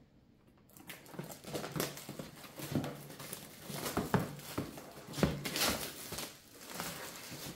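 Clear plastic shrink wrap crinkling and rustling as it is peeled off a product box, in irregular crackles starting about a second in.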